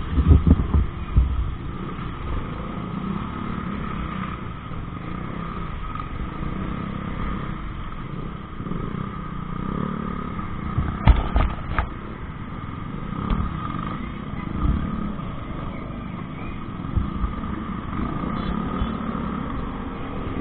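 Small motor scooter engines running as a group of scooters pulls away slowly, a steady hum with a few knocks about eleven seconds in.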